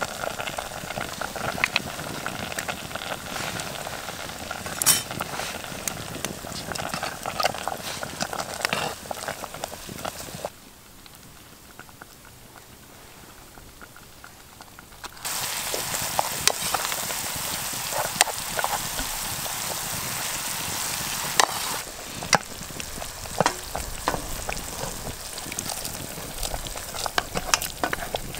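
Campfire cooking over hot coals: a pot bubbling and food sizzling, with a spoon stirring and clicking against the metal pot in many sharp clicks. The sound drops low for several seconds about a third of the way in, then comes back louder as a steady sizzling hiss.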